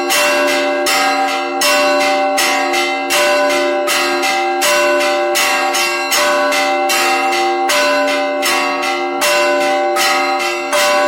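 Russian Orthodox church bells rung in a continuous peal: smaller bells struck rapidly in rhythm over the lingering hum of larger bells, with a heavier stroke about every second and a half.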